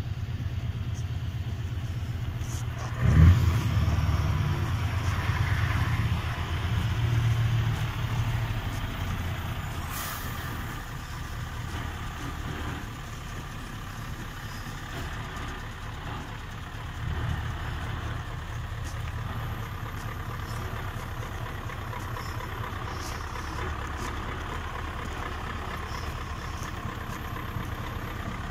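Scania R 650's 16.4-litre V8 diesel running at low speed, a steady low rumble. A sudden loud burst about three seconds in is the loudest moment, and the engine stays louder for several seconds after it before settling.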